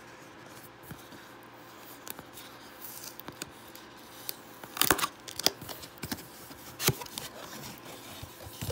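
Tape being peeled and a cardboard power-supply box and its packaging being opened by hand: scattered rustling, tearing and sharp clicks, loudest about five and seven seconds in.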